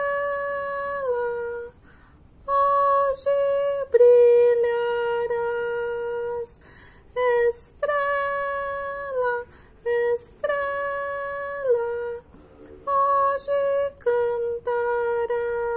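Wooden pentatonic flute playing a slow, simple melody in short phrases; each phrase steps down to a long held lower note.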